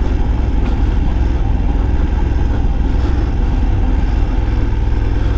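BMW F 750 GS's 853 cc parallel-twin engine running as the bike is ridden, a steady low rumble that cuts in abruptly at the start.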